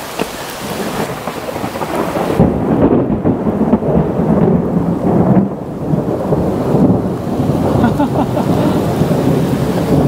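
Thunder rumbling over steady rain during a summer mountain thunderstorm, the deep rumble swelling about two seconds in and rolling on.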